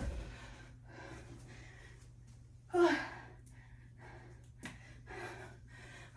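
A woman breathing hard from exertion during a burpee set: short panting breaths every second or so, with one loud, voiced gasp about three seconds in.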